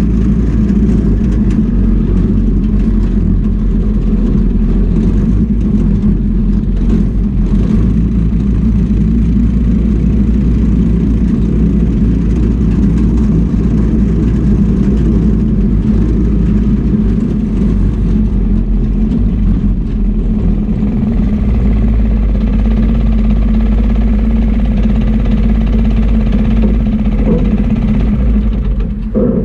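Yerf Dog go-kart engine running steadily under throttle as the kart drives over grass, easing off just before the end.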